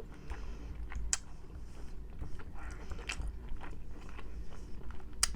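Close-miked chewing of a bite of rib eye steak with barbecue sauce: wet mouth clicks and smacks, a few sharper ones about a second in, about three seconds in and near the end, over a low steady hum.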